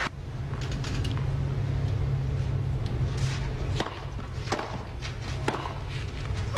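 A few sharp separate taps of a tennis ball bounced on a clay court between points, over a low steady background hum.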